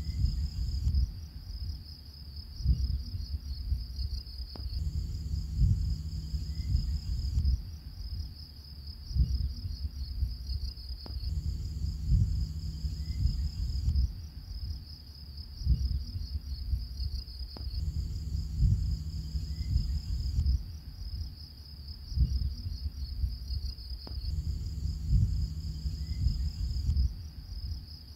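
Background soundtrack looping every six or seven seconds: a steady high, shrill cricket-like chirring over a rhythmic low beat and slow repeating tones.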